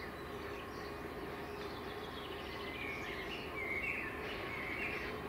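Small birds chirping and trilling, most busily in the second half, over a steady low hum and rumble from a Southern Class 313 electric train approaching in the distance.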